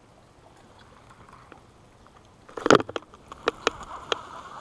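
A loud clatter about two and a half seconds in, then three sharp clicks over a light steady whir. This is rod and baitcasting-reel noise as a bite is struck and line is reeled in.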